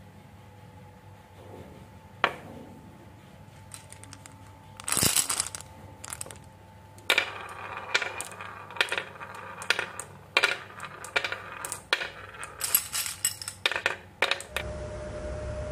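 Marbles clacking and rattling as they roll down a toy marble run: a single click, a burst of clatter, then a long string of quick hard clicks and knocks. Near the end the clicks stop and a steady low hum takes over.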